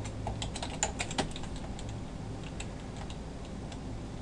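Typing on a computer keyboard: irregular keystroke clicks, thicker in the first second or so and sparser after, over a low steady hum.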